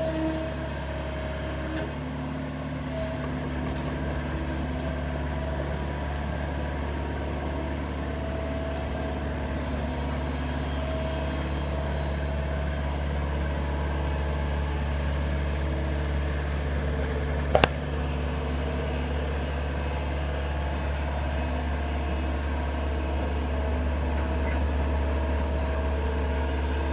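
Excavator engine running steadily, its low hum slowly growing a little louder. One sharp knock about two-thirds of the way through.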